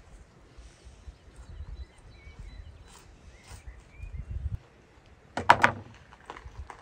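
Outdoor ambience: a low rumble, a few faint bird chirps, and a brief burst of sharp knocks or crunches about five and a half seconds in.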